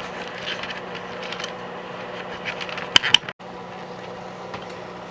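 A steady low hum, like a fan or air conditioner, with faint scattered ticks and two sharp clicks about three seconds in; right after the clicks the sound cuts out for a moment.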